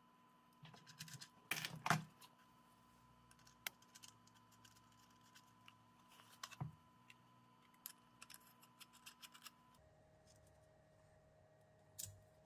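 Small brass fittings clicking and clinking as they are handled and sorted among loose metal parts, with a brief burst of clatter about two seconds in and scattered light ticks after.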